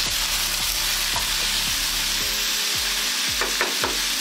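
Diced potatoes, carrots and frozen peas sizzling steadily in ghee in a frying pan over high heat, stirred with a wooden spatula, with a few short scrapes of the spatula against the pan a little past the middle.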